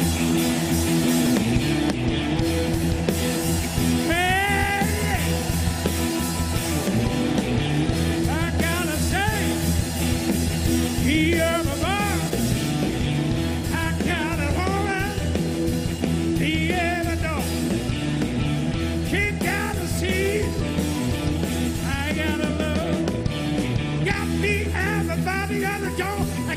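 Loud rock music with a steady beat, and a man's voice singing over it from about four seconds in.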